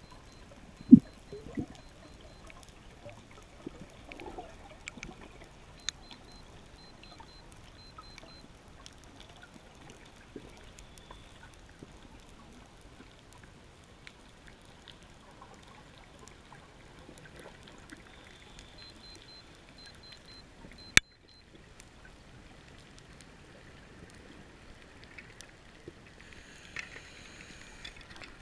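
Underwater noise heard through a camera's waterproof housing: a steady low hiss with scattered faint clicks, a strong thump about a second in and a single sharp click about two-thirds of the way through.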